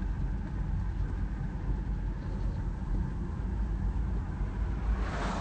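Steady low rumble of a car driving, heard from inside the cabin, with a brief hiss near the end.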